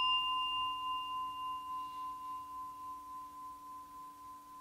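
A meditation singing bowl rings on after being struck, one clear tone with a lower hum beneath, its higher overtones dying first. The ring fades slowly with a gentle pulsing waver in loudness.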